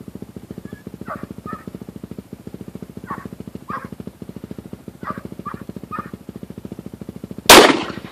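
A single shot from a Glock 9mm pistol, sharp and loud, about seven and a half seconds in. Before it, a dog gives several short barks in twos and threes over a steady low throb.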